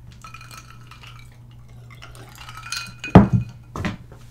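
A drinking glass handled and set down on a hard tabletop: faint clinks, then one loud thump about three seconds in and a softer knock just after.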